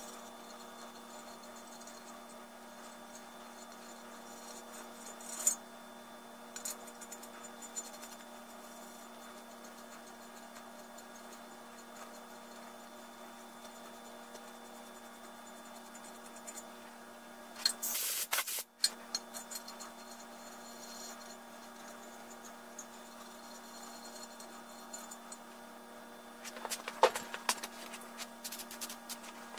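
Faint metallic clinks and scrapes of a hand tool against the cast-iron 7.3 Powerstroke engine block as piston cooler oil jets are fitted, over a steady low hum. A louder clatter comes about eighteen seconds in and a run of small clinks near the end.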